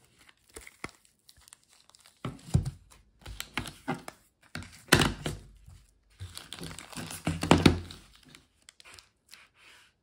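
Clear plastic packaging crinkling and hard plastic magnetic card cases knocking on a table as the packaged holders are handled and turned over, in irregular rustling bursts with several louder clatters.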